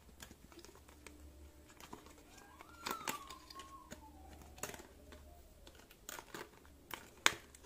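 Soft crinkling and scattered clicks of a white cardboard packing insert being handled as Apple EarPods and their cable are pulled free of it, with one sharper click about seven seconds in.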